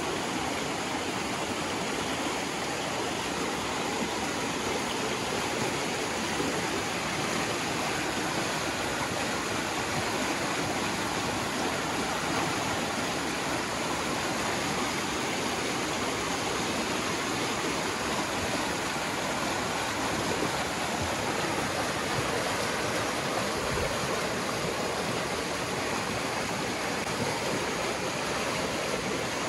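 River water rushing, a steady, unbroken rush with no change through the whole stretch.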